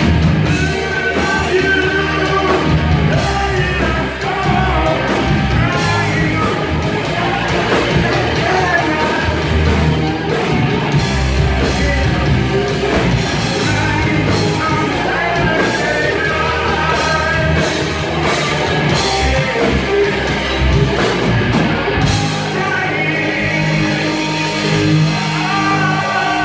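Live rock band playing loud: a singer over electric guitars and drums, amplified through the PA and heard from within the crowd in a large room.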